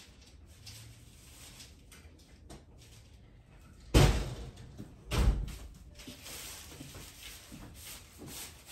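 Two heavy knocks off-camera, the first sharp and the loudest, the second a little over a second later, amid faint rattling and clicking.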